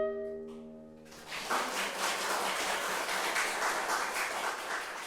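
The final held clarinet note of the duet cuts off and rings away in the hall's reverberation. About a second in, audience applause breaks out and carries on steadily.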